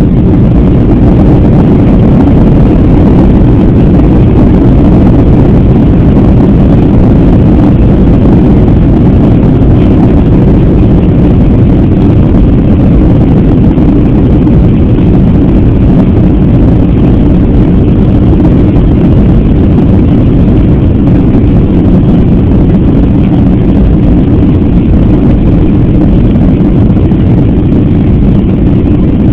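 Boeing 757's jet engines at takeoff power during the takeoff roll, heard from inside the cabin: a loud, steady, low noise.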